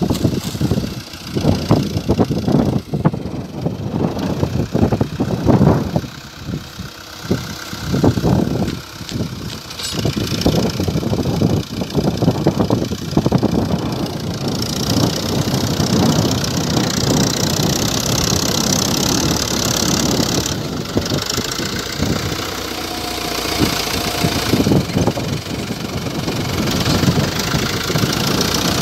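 Diesel farm tractor engines running while a front loader tips manure into a trailer. The sound comes in uneven surges for the first half, then runs steadier and fuller as the trailer's bed tips up to dump the load.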